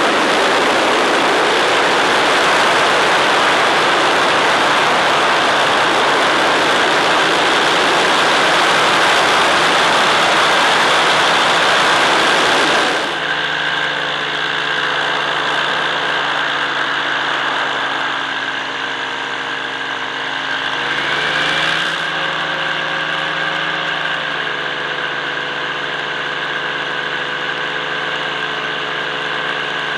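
Small drone's electric motors and propellers heard through the onboard camera: for the first 13 s, a loud rushing noise with a steady whine. After a sudden cut about 13 s in comes a quieter hum of several steady tones, whose pitch rises briefly around 21 s as the throttle changes, then settles.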